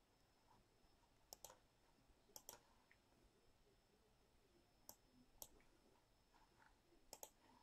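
Near silence with faint sharp clicks, about eight in all, several coming in quick pairs.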